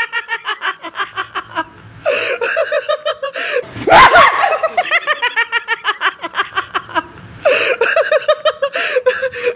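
People laughing hard in fits of rapid ha-ha pulses, with short breaks about two and seven seconds in, and a sudden loud burst about four seconds in.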